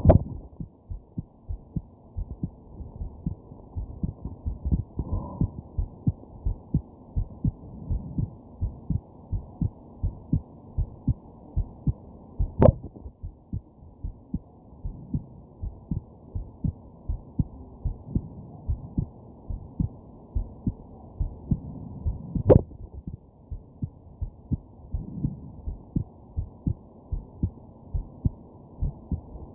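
A person's heartbeat thumping in a steady rhythm, a bit more than one beat a second. Three sharp, louder hiccup jolts break in: one right at the start, one about 12 seconds in and one about 22 seconds in.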